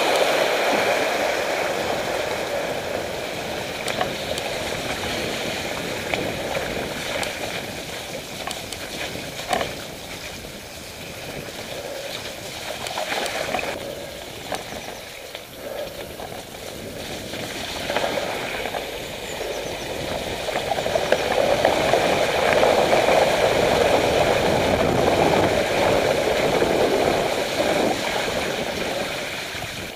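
Mountain bike riding along a flooded, muddy lane: tyres swishing through mud and standing water, with wind rushing over the microphone and occasional knocks and rattles from the bike over bumps. The rush grows louder in the last third.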